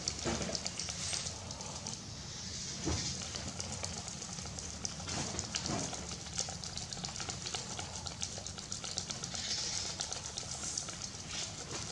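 Small plastic baby bottle of milk being rolled and shaken between the palms to mix it: a steady rustling hiss of hands rubbing on the bottle, with faint irregular ticks.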